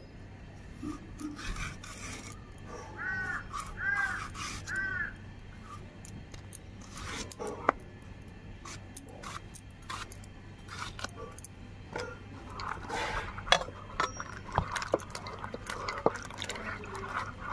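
Green plantains being peeled and cut on a bonti blade: scraping strokes and sharp clicks of the blade through the skin and flesh. A crow caws four times a few seconds in, and near the end the cut pieces are dropped and handled in a clay bowl of water.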